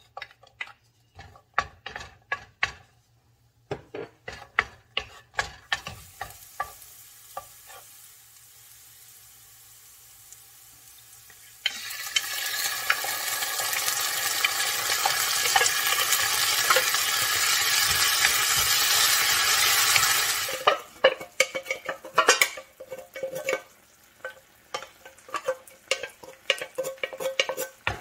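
A wooden spatula clicks and scrapes against a nonstick frying pan while sliced garlic fries quietly in oil. About twelve seconds in, canned fish is tipped into the hot oil and a loud sizzle starts suddenly, lasting about eight seconds. Then the spatula goes back to stirring and tapping in the pan.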